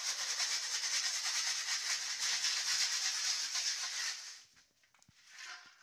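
Raw peanuts poured from a metal bowl into a metal wok: a dense, continuous rattle for about four seconds that thins to a few stray clicks, then one short last rattle near the end as the remaining nuts slide out.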